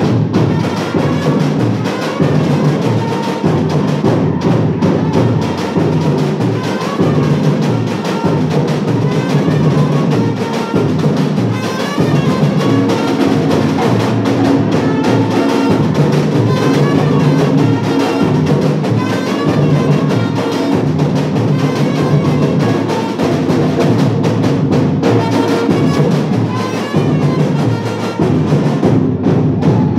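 Batucada drum ensemble playing samba percussion together: loud, continuous, dense drumming with deep bass drums under sharper strokes.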